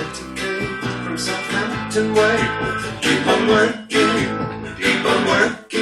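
Guitar-led music playing from a vinyl record on a Dual 1246 turntable fitted with a Pickering XV15 cartridge, with plucked and strummed guitar.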